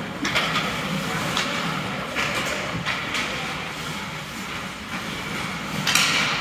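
Ice-rink ambience: a steady hum with several short, hissing scrapes of skate blades on the ice, the strongest near the end.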